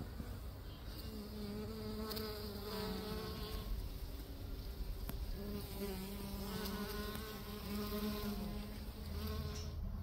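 A flying insect buzzing close by: a steady wing hum that wavers a little in pitch. It starts about a second in, breaks off briefly midway, resumes and fades near the end.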